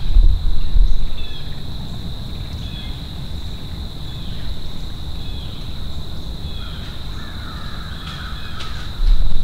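Crow cawing in a wooded field edge, a harsh call heard most clearly near the end, with low rumbling gusts on the microphone at the start and again near the end.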